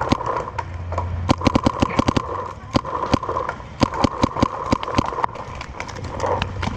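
Paintball markers firing rapid strings of shots: sharp pops, packed closest together about one to two seconds in, with scattered shots through the rest. A steady whir runs underneath.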